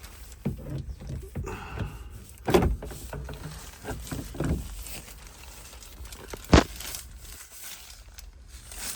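Knocks, bumps and rattles of parts being handled while the dried air-conditioner filter is fitted back into the excavator cab. There are two sharp knocks, about two and a half and six and a half seconds in.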